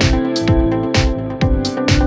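Electronic background music with a steady beat of kick drum and hi-hat over sustained chords.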